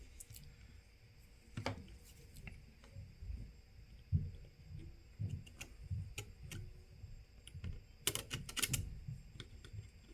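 Faint, irregular clicks and taps of a small hand tool working old screen adhesive off a phone's plastic frame, with a quick run of sharp ticks near the end.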